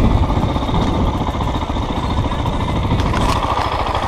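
Dirt bike's engine running steadily while riding along a dirt road, heard close up from a camera mounted on the bike.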